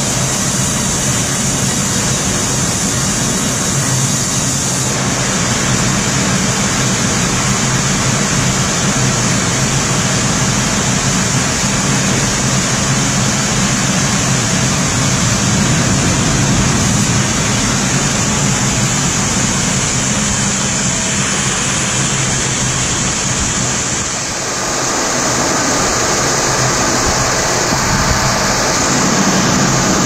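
Steam-driven band sawmill running: a loud, steady mechanical noise with a low hum underneath. The sound changes suddenly about three-quarters of the way through.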